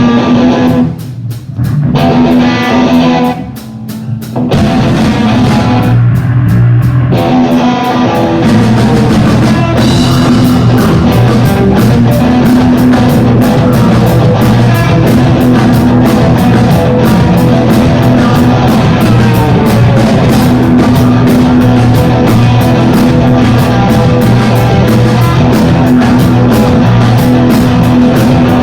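Live band playing loud rock music on guitar and drum kit. It stops briefly twice in the first few seconds, then plays steadily with an even drum beat.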